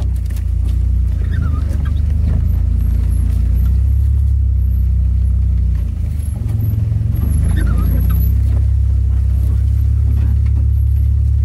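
AWD Chrysler minivan running slowly over a rough dirt trail, heard inside the cabin: a steady low engine and road rumble with scattered knocks from the bumps and two brief squeaks.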